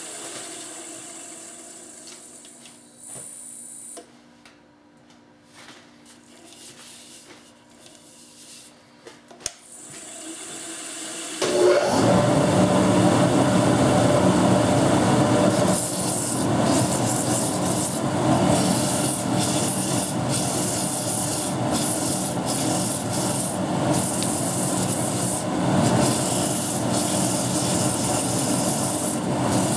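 A wood lathe with an elm egg on it: a falling hum fades at the start, then comes a quiet stretch. About eleven seconds in the lathe starts suddenly, and abrasive held against the spinning wood gives a steady rubbing hiss of sanding that turns brighter from about sixteen seconds.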